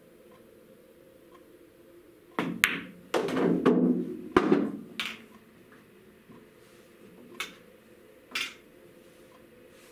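A pool shot: the cue tip strikes the cue ball, then a sharp click as it hits the object ball, followed by a rolling rumble of about two seconds with more knocks as the ball drops into a pocket and runs inside the table. Two single light clicks come later as balls are handled and set on the cloth.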